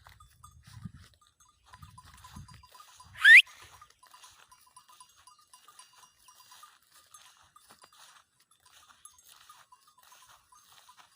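A single short whistle that rises sharply in pitch about three seconds in, over faint low rustling and a faint run of quick, even ticks.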